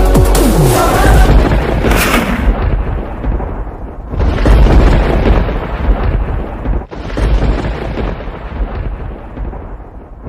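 Thunder-clap sound effects: a loud rumbling crash that dies away, then a fresh crash about four seconds in and another about seven seconds in, each fading out.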